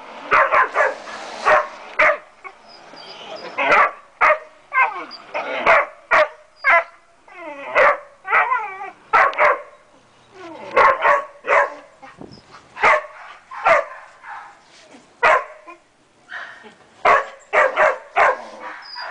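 Dogo Argentino dogs barking and yipping in short sharp calls, one or two a second, some drawn out into falling, whiny yelps, with a brief lull near the end. The barking comes in an uneasy meeting between the two dogs.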